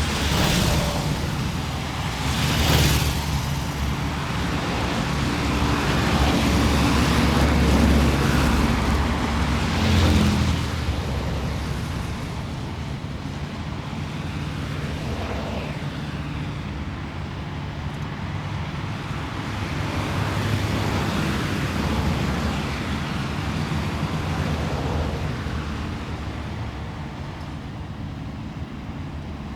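City street traffic: a steady wash of engines and tyres with several vehicles passing close, the loudest around three and ten seconds in, then a quieter, steadier stream of traffic.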